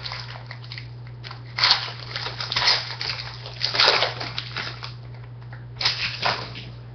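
Foil wrapper of a trading card pack being torn open and crinkled, in about four loud crackling rustles.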